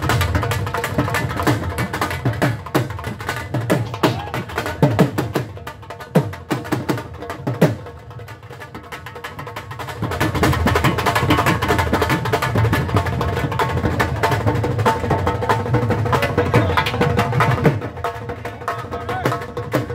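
Dhol beaten with sticks in a fast Sufi rhythm, with other drums around it. The playing drops back around six seconds in and comes in louder and fuller from about ten seconds.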